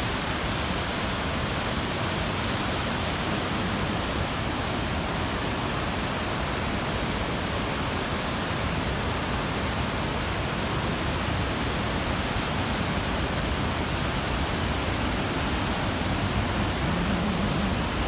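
Upper Mesa Falls, a wide waterfall on Henry's Fork, rushing steadily: an even wash of falling water that does not change.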